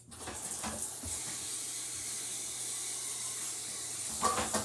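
Tap water running in a steady stream, filling the hamsters' water bowl with fresh water. It starts abruptly.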